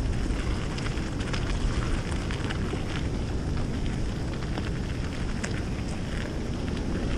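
Wind buffeting the microphone, a steady low rumble with light crackling through it.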